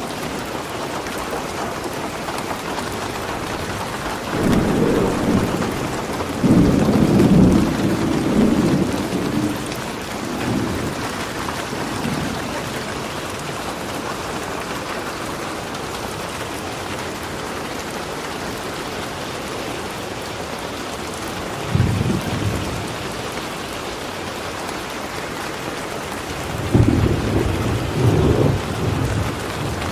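Steady rain falling, with rolls of thunder rumbling three times: a long roll a few seconds in, a short one about two-thirds through and another near the end.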